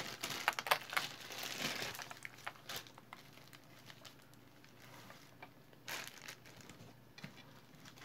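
A strand of glass beads clicking and rattling as it is handled and moved: scattered short clicks, with a denser rustle over the first two seconds.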